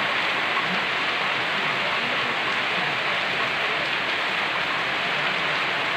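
Steady, even hiss of heavy rain.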